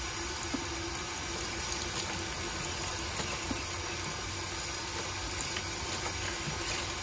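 Tap water running steadily into an outdoor utility sink while leaves of mustard greens are rinsed under it one at a time.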